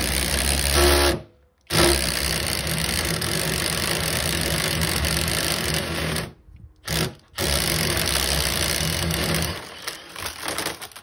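Cordless drill boring into red brick, its motor and bit running in long bursts. It stops briefly about a second in, pauses twice more around six to seven seconds in, then winds down near the end.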